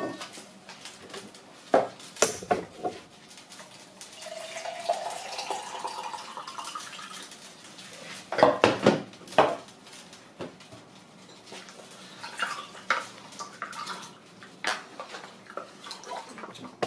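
A metal spoon scraping out a tin can and knocking against the can and the rim of a cooking pot: scattered sharp clinks, with the loudest cluster of knocks about eight to nine seconds in. About four seconds in, liquid runs into a container for a few seconds, its pitch rising as it fills.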